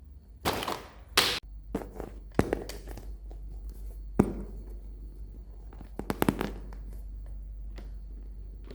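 Close-up handling of plastic toy packaging: a string of sharp clicks and taps with short crinkling rustles, the loudest snaps about one and four seconds in and a quick cluster about six seconds in.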